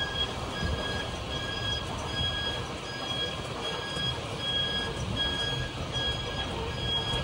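Airport electric passenger cart's warning beeper sounding as the cart drives: alternating high and low beeps repeating steadily, over the low hum of the moving cart.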